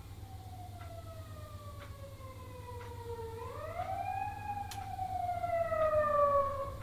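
A wailing siren, its pitch sliding down, rising again about a third of the way through, then falling slowly while growing louder toward the end. A clock ticks about once a second underneath.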